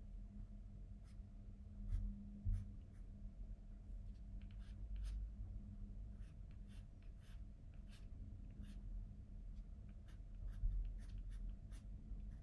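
Graphite pencil drawing on paper: faint, short scratchy strokes coming irregularly, several a second, over a low steady hum. There are two soft low bumps about two seconds in.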